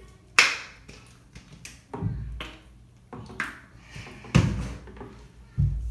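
A string of about six short, sharp taps and splashes in a part-filled bathtub as a small dog is handled and shampooed, each dying away quickly; the loudest come about half a second in and about four and a half seconds in.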